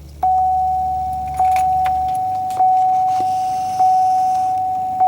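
Car's dashboard warning chime dinging, one ding about every 1.2 seconds, each ringing on into the next. A low hum underneath cuts off about two seconds in.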